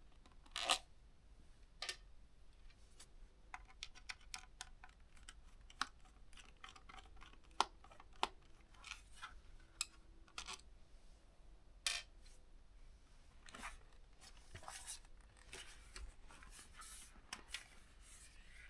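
Faint, irregular clicks, ticks and scrapes of a Phillips screwdriver backing small screws out of a ThinkPad T430 laptop's plastic bottom case, with a few short scratchy rustles near the end.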